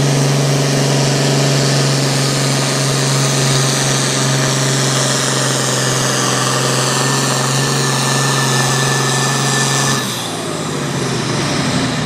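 A 12,000 lb hot farm tractor's diesel engine pulling the sled under full load, a loud, steady engine note. About ten seconds in, the level drops and the engine's pitch falls away.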